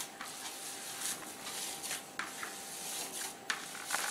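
Hands kneading and rubbing fresh chhena (crumbly curd cheese) in a plastic bowl: soft, irregular rustling and squishing strokes. A faint steady hum runs underneath.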